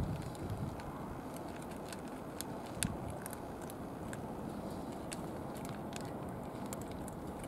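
A cat eating from a plastic bowl: a scattered run of small, sharp chewing clicks over a steady low background noise.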